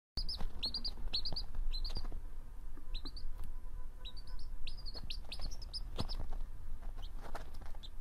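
Baby birds chirping: a quick series of short, high chirps, pausing briefly about two seconds in and then resuming.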